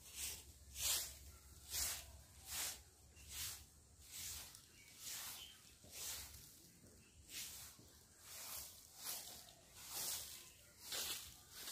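Hand broom (jhaadu) sweeping bare dirt ground, one hissing swish about every second in a steady rhythm.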